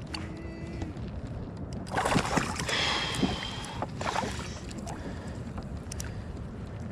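Wind buffeting the microphone over water moving around a kayak at sea, with a louder, splashy stretch from about two to four seconds in.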